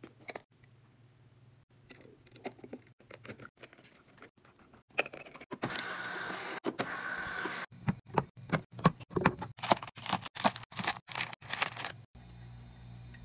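Refrigerator water dispenser running into a glass bottle for about two seconds, then a quick run of clinks and knocks from bottles and items being handled and set down. A steady low hum comes in near the end.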